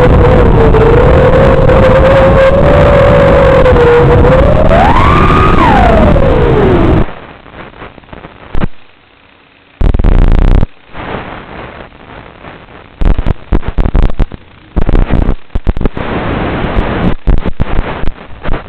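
FPV quadcopter motors and propellers whining loudly, the pitch climbing sharply about five seconds in as the throttle is punched, then falling away. About seven seconds in the sound breaks up into choppy crackling static and dropouts, as an analog video-link audio feed does when the signal fades.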